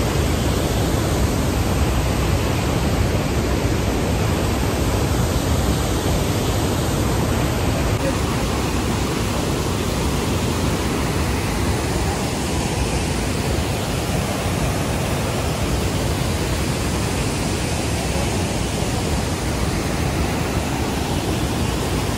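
Waterfall in heavy flow: a loud, steady rush of falling water.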